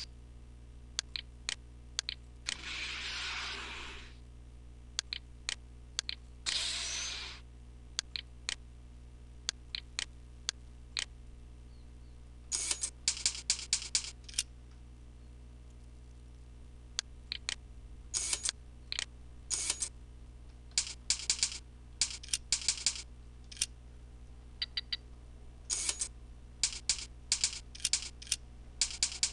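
Computer keyboard typing in quick runs, with scattered single clicks, over a steady electrical hum. Two short bursts of hiss come early on.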